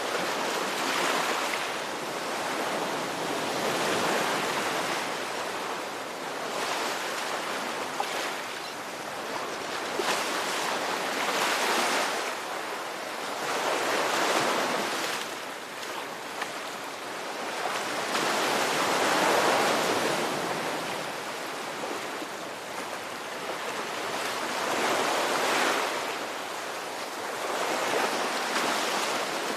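Ocean surf: waves breaking and washing in as a continuous rush, swelling and easing every few seconds.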